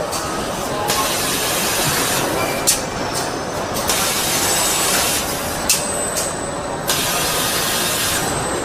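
Car assembly-line machinery noise: a steady mechanical din with bursts of air hissing that switch on and off several times, and a few sharp clicks.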